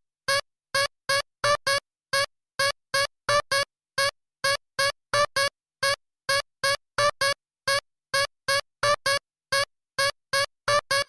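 Soundtrack music: short staccato electronic keyboard notes repeating at about three a second, each one cut off into dead silence before the next.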